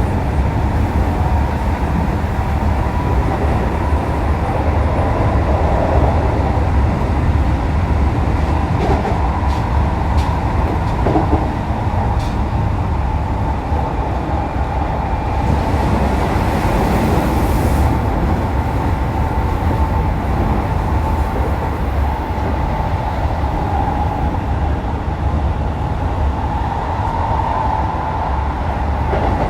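Keikyu New 1000 series (1890 subseries) electric train running at speed, heard from inside the car. There is a continuous rumble of wheels on rail and a steady whine, from a train fitted with Toyo hybrid SiC VVVF traction equipment.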